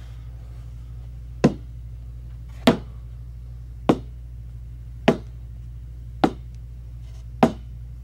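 Foley footsteps: a shoe worked by hand along a wooden bookshelf shelf, six slow, evenly spaced steps about a second apart, each a sharp knock. A steady low hum runs underneath.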